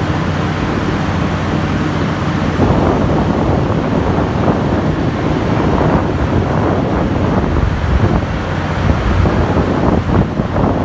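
Truck-mounted water well drilling rig running: a steady engine drone with a loud rushing noise over it.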